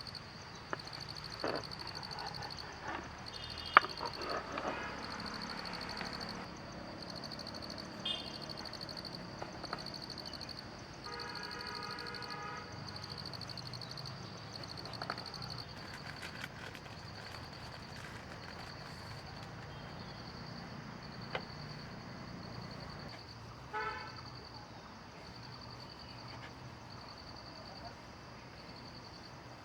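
Outdoor ambience with a steady high-pitched insect trill and a low rumble beneath it. A few short honk-like calls come through, the longest a bit after ten seconds in, and there is one sharp click about four seconds in.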